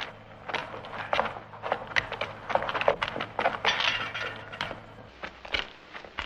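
Irregular clinking and clattering: a fast, uneven run of sharp knocks and clinks, like metal blades and hard objects being knocked together.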